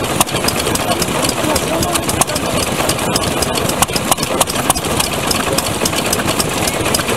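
Old single-cylinder stationary oil engines (Japanese 石油発動機) running together, a busy mix of irregular exhaust pops and mechanical clatter.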